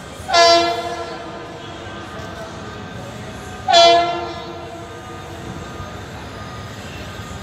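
Train horn sounding two short blasts about three and a half seconds apart, each starting sharply and fading over about a second, over the steady low rumble of the moving train.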